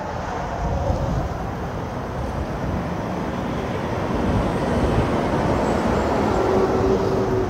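Road traffic noise: a continuous rumble of passing vehicles that swells toward the end, with a faint steady engine hum near the end.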